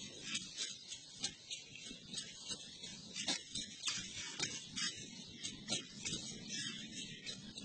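Irregular sharp clicks and scrapes, a few a second, as a blade digs and scrapes at loose soil, over a steady high hiss.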